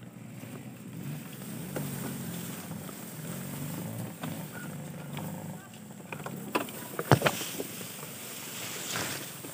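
Dirt bike engine running at low revs, its pitch wavering, with tall grass swishing against the bike and microphone. A few sharp knocks come about seven seconds in, the loudest moment, and another near the end.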